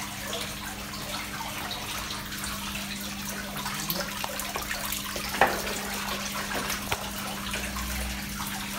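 Water running and splashing steadily in an indoor koi pond, over a steady low hum. A sharp knock comes about five and a half seconds in, with a lighter click near seven seconds.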